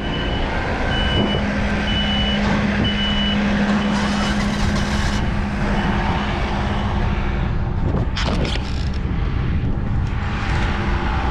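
A diesel machine's engine running steadily while its reversing alarm beeps, about one to two beeps a second. The beeping stops about five seconds in, and a couple of knocks follow near the end.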